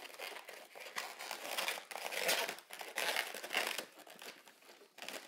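Latex modelling balloons rubbing against each other as they are twisted together by hand, in several short bursts, the strongest about two seconds in.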